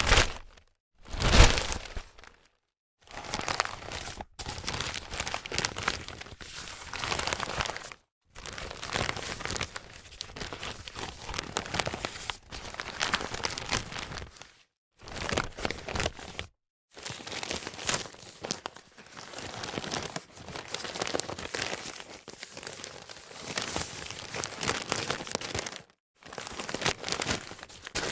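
Newspaper being handled and crumpled: crackling, crinkling paper in a string of separate takes a few seconds long, with short silences between them. Two short, loud bursts of paper noise open the run.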